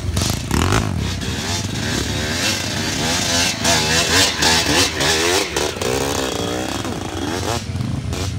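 Dirt bike engines revving hard on a loose uphill climb, the pitch rising and falling again and again as the throttle is worked.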